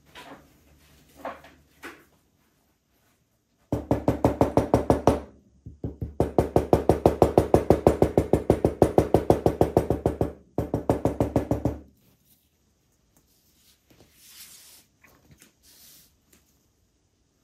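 Rapid, even knocking from leatherwork, about seven strikes a second, in three runs with short breaks between them. Fainter scattered handling clicks before and after.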